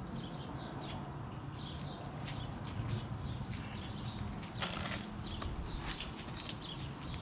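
Small birds chirping in the background over a steady low hum, with a brief scraping rustle about four and a half seconds in.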